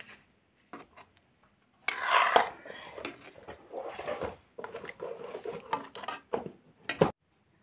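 Metal spoon stirring thick curry gravy in a metal kadai, scraping and clinking against the pan. It starts about two seconds in, and a sharper knock comes near the end.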